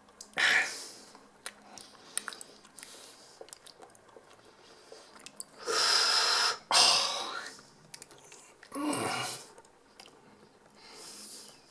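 A man making exaggerated mock chewing and munching noises with his mouth as he pretends to eat a prop foot, in several loud bursts with quiet gaps between.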